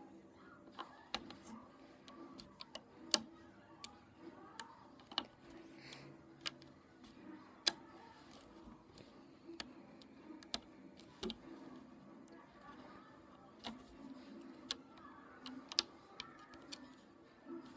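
Light, sharp clicks at an uneven pace, about one a second, from a hook tool and rubber bands snapping against the pegs of a rubber-band loom as bands are hooked, over a faint low hum.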